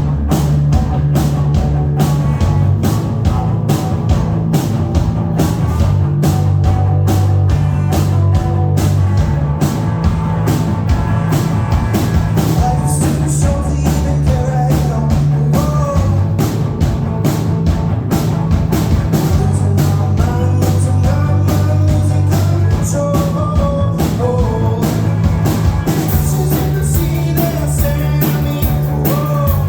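Rock band playing live, drums keeping a steady beat over the bass.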